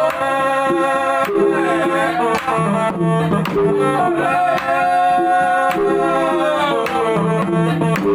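Batak gondang ensemble music: men sing long, sliding notes over steady drum strokes and hanging bronze gongs, with short repeated notes underneath.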